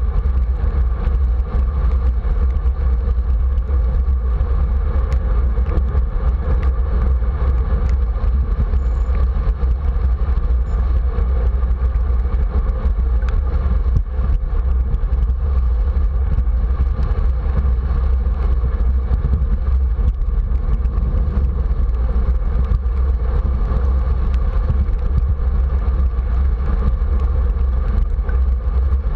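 Steady wind rumble on the camera microphone with tyre noise from a bicycle rolling on wet pavement in the rain.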